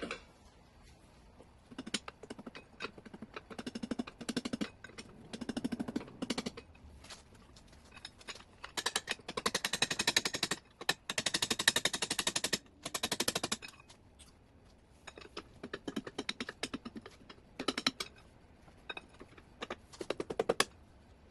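Rapid runs of clicking from a wrench working bolts loose on a rotary engine's housings, starting and stopping in runs of a second or two, with the longest and loudest stretch in the middle.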